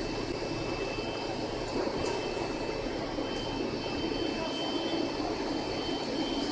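Steel ball skew rolling mill running, a steady mechanical noise from the rolls and their cardan drive shafts, with a faint high whine that comes and goes and a few faint clicks.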